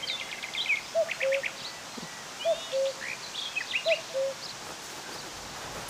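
Common cuckoo calling its falling two-note cu-ckoo three times, about one and a half seconds apart, over higher chirping of other songbirds.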